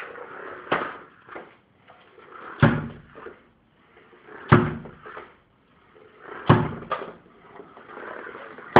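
A small homemade mouse robot bumping head-on into walls and baseboards with its frail whisker bumper: sharp knocks about every two seconds, a few of them heavier thuds.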